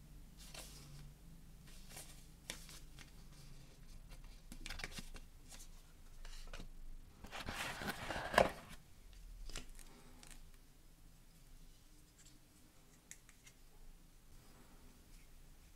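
Cardboard box and its card inserts being handled: scattered light rustles and clicks, with a longer scraping rustle that ends in a sharp knock about eight seconds in, as the box's inner tray is worked open.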